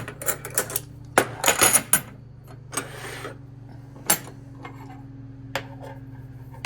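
Steel wrenches clinking and clattering as they are handled and set down: a quick run of clinks in the first two seconds, a short scrape a few seconds in, then a couple of single clinks. A steady low hum runs underneath.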